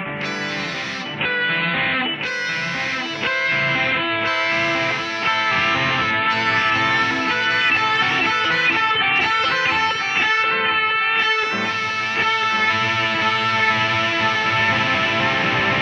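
Guitar music, with plucked notes and chords changing every fraction of a second and no pauses.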